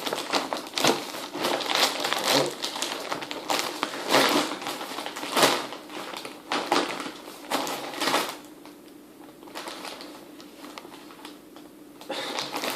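Parcel packaging being handled and opened by hand: repeated crinkling and rustling, dying down for a few seconds before starting again near the end.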